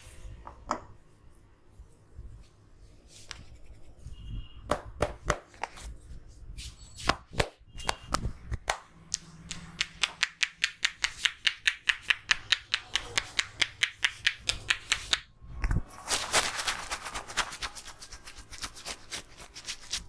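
Barber's hands tapping and striking a man's head and neck in a head massage, making sharp clap-like pops. A few scattered strikes come first, then about halfway through an even fast run of about five to six a second, and near the end a quick hissy flurry.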